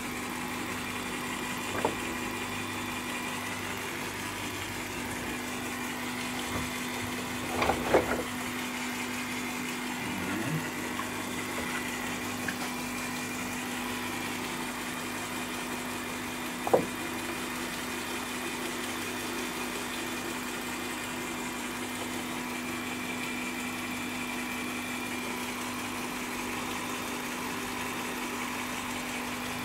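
Bench drill press motor running with a steady hum, with a few sharp wooden knocks about 2, 8 and 17 seconds in as wooden duduk bodies are handled.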